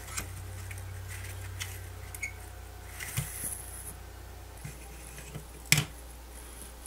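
Small plastic clicks and handling noises as a multimeter's LCD and keypad assembly is turned over and pulled apart by hand, with one sharp snap near the end.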